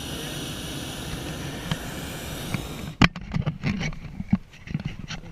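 Hot-air balloon propane burner firing, a steady roar that starts suddenly and cuts off about three seconds in. After it, irregular knocks and low rumbles.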